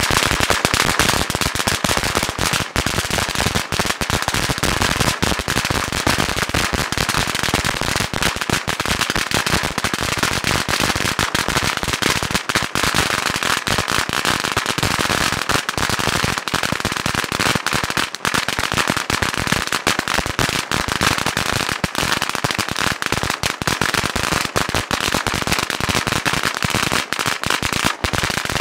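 A long roll of 8,000 firecrackers (Dominator USA T736) going off in an unbroken stream of rapid bangs at a steady, high loudness.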